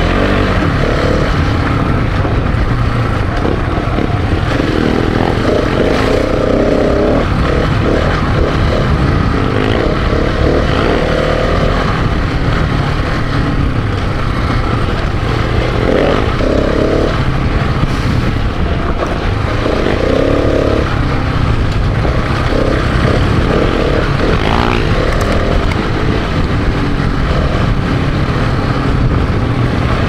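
Single-cylinder dual-sport motorcycle riding on a dirt forest road, its engine running steadily under way, with a heavy rumble of wind on the microphone.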